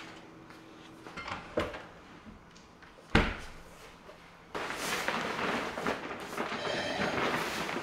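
Kitchen handling sounds: a few light knocks, a dull thud about three seconds in, then continuous rustling as a fabric insulated delivery bag is opened and handled.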